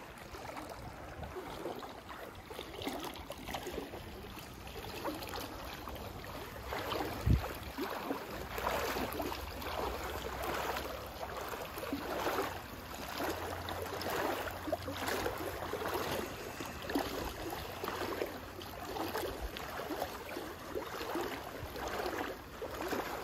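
Floodwater running out of an overflowing lake, with wind buffeting the microphone and a single thump about seven seconds in.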